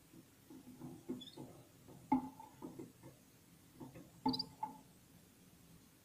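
Irregular light taps and clicks from a small finch moving about its cage, the loudest about two seconds in and again just past four seconds, with two faint high chirps.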